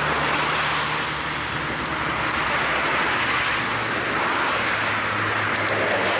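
Motor traffic running close by on a road, with a steady low engine hum under a continuous hiss of road noise; the hum shifts in pitch about four seconds in.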